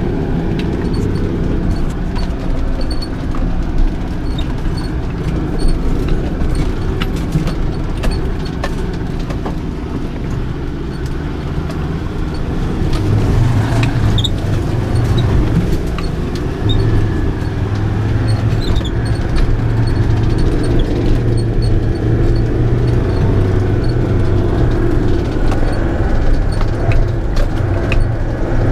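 Motor vehicle driving on a rough, potholed forest track: a steady engine drone that grows louder about halfway through, with scattered knocks and rattles.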